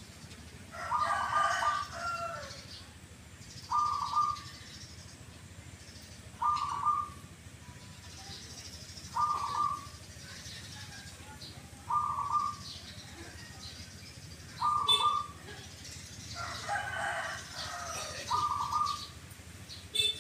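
Caged zebra doves (perkutut) calling: a short, clipped "kuk" note repeated about every three seconds. Two longer, harsher bird calls come in, one about a second in and one near the end.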